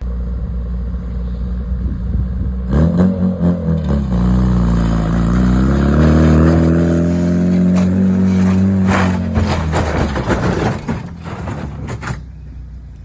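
A car engine revving. It runs low and steady at first, climbs in pitch about three seconds in, dips and climbs again, holds, then falls away around ten seconds, with sharp clicks through the revving.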